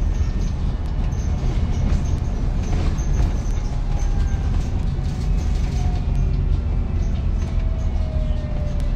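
Inside a moving Volvo B5TL/Wright Gemini 3 double-decker bus: steady low engine and road rumble with interior fittings rattling and clicking throughout. A faint whine slides slowly down in pitch over the second half.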